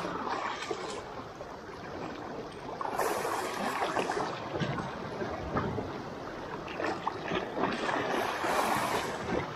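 Small waves washing and lapping over shallow rocks at the water's edge, swelling louder about three seconds in and again near the end.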